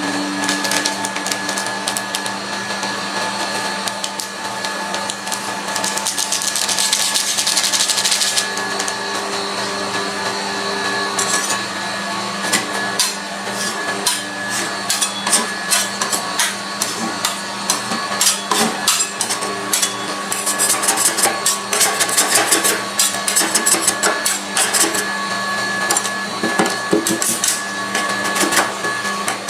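Metal spatulas tapping and chopping on a frozen steel ice cream roll plate, in quick runs of sharp clicks that get busier in the second half, with a stretch of scraping about a quarter of the way in. A steady machine hum runs underneath.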